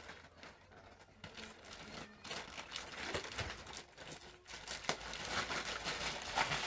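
Gift wrapping paper crinkling and tearing as a present is unwrapped, growing busier and louder from about two seconds in.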